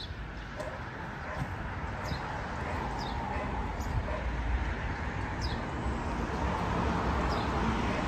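Wind blowing across the microphone: a steady rushing noise, heaviest in the low end, that slowly grows a little louder. A few faint, short, high chirps sound now and then.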